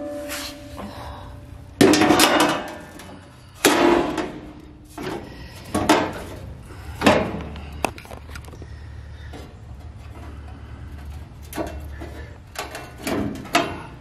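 A bent sheet-steel step patch panel clanking and scraping as it is worked into place, with several sharp metallic knocks that ring briefly, a second or two apart, and a quicker cluster of knocks near the end.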